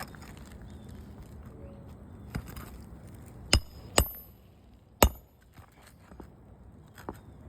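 Four sharp metallic strikes of a hand tool during a roof shingle repair, each with a brief high ring. The middle two come about half a second apart and the loudest comes about five seconds in, over a steady low background.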